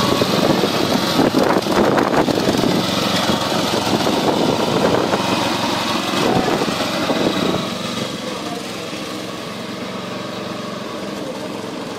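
Lawnmower engine running, busy and uneven at first, then settling to a lower, steadier drone about eight seconds in.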